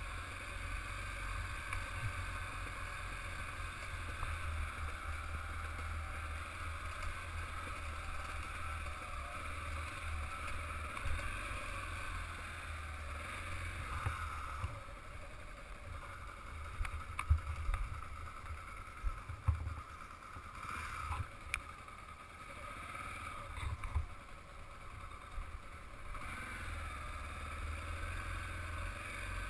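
Motorcycle engine running on a rough dirt track, with wind rumble on the microphone. Partway through it drops quieter for about ten seconds, with several sharp knocks from bumps.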